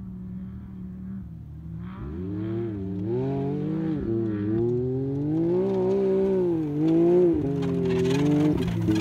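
Can-Am side-by-side race buggy coming on at speed over whoops, its engine revving up and down over and over as the throttle is worked across the bumps, and growing louder as it nears. Near the end it passes close by with a hiss of flung dirt.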